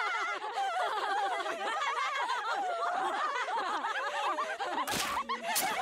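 A group of women laughing together in cartoon voice acting, several high cackling voices overlapping. Near the end come two short, sudden noises.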